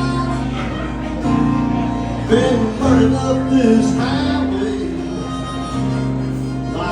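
Country band playing the instrumental intro of a song: held chords, with a lead melody bending in pitch a couple of seconds in. No singing yet.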